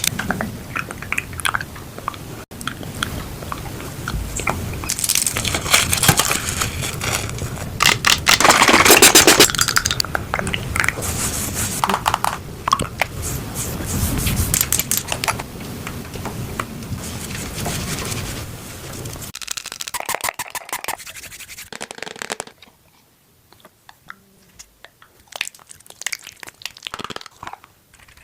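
Close-miked handling of face-mask and cream packaging: a run of crinkling, scraping and tapping sounds, busiest and loudest in the first third and much softer for the last several seconds.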